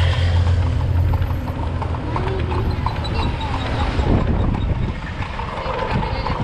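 Street traffic: moped engines running and a city bus driving past in the second half, with a run of sharp, evenly spaced clacks through the first few seconds.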